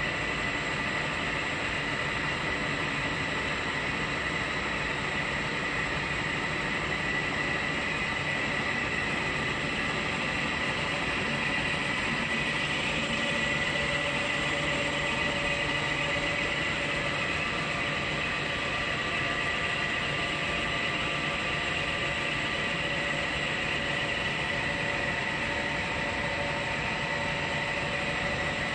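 CNC machine running steadily through a machining cut, a steady high whine over a continuous noisy hum.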